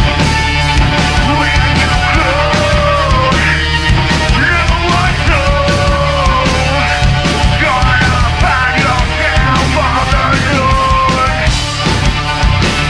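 Live heavy rock band playing loud: distorted electric guitars, bass and driving drums, with a vocalist singing and shouting a sliding melody line over them.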